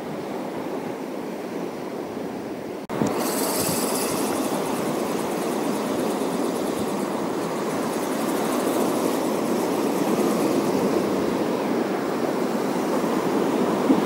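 Sea waves washing on the shore with wind buffeting the microphone, a steady rushing noise. It drops out briefly about three seconds in, then comes back a little louder with a hissing wash for a second or two.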